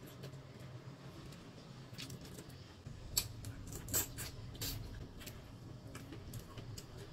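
Close-up eating sounds: mouth smacking and sucking on boiled shrimp, with scattered small clicks and crackles from shrimp shells being peeled by hand. The loudest click comes about four seconds in.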